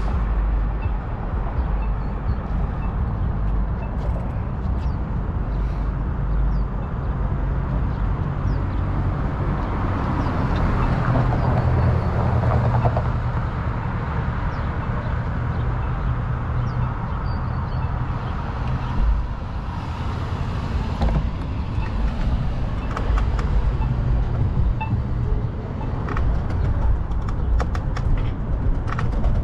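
City street traffic: a steady rumble of vehicles, swelling as a louder vehicle passes about ten to thirteen seconds in.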